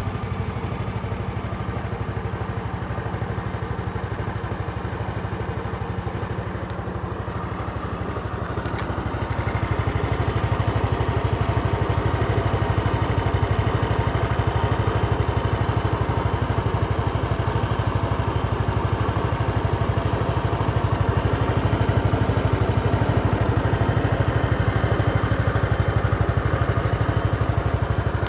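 Honda SES 125 Dylan scooter's single-cylinder four-stroke engine idling steadily. It gets louder from about ten seconds in.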